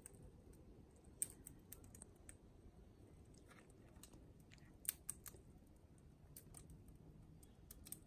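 Faint, irregular sharp clicks from a wild green rosella at a plastic bucket of sunflower seeds, with two louder clicks about a second in and just before the middle.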